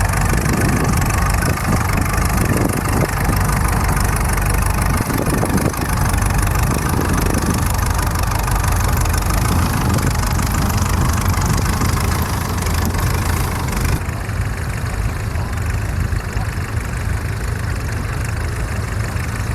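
Engine running steadily with a deep rumble; about fourteen seconds in the sound turns duller and a little quieter.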